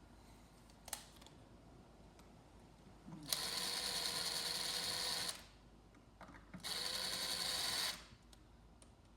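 Cordless power driver running twice, about two seconds then just over a second, driving in the tweeter's long mounting screws, with a steady motor whine.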